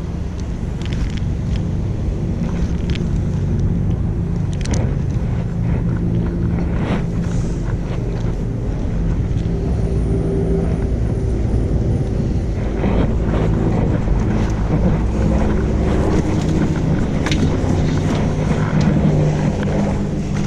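Engine drone, steady and low-pitched, with its pitch shifting slowly and a few faint clicks over it.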